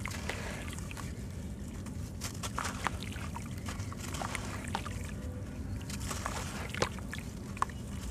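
Dry sand-cement chunk crumbled in the hand, with irregular gritty crackles as it breaks and crumbs and powder splashing into shallow water in a plastic tub. A steady low hum runs underneath.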